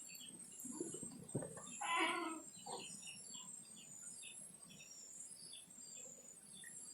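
Faint birds chirping in the background, short high chirps repeating about once or twice a second, with a brief louder sound about two seconds in.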